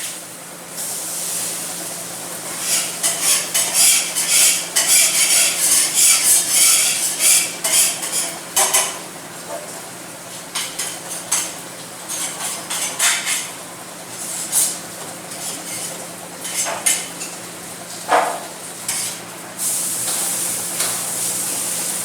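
Commercial kitchen cooking: metal utensils scraping and clattering against a pan or griddle in irregular strokes, with sizzling, over a steady low hum.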